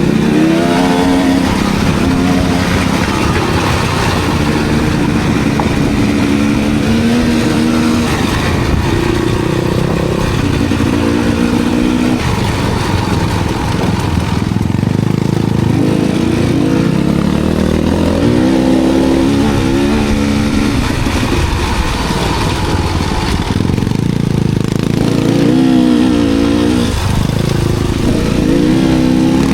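Enduro dirt bike engine revving up and down on a trail ride, its pitch rising and falling again and again with the throttle.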